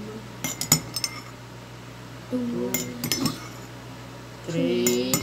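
A large spoon clinking against glass and plastic bowls as water is scooped and added spoonful by spoonful: a quick cluster of sharp clinks about half a second in, more around the middle and near the end. Two short hummed voice sounds come in between.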